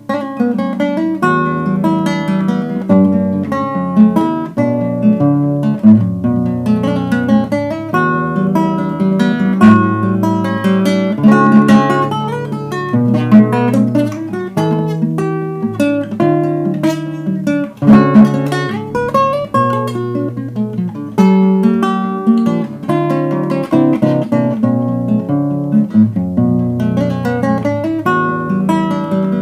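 Acoustic guitar playing an instrumental piece: a steady, rhythmic run of plucked notes over a repeating bass line.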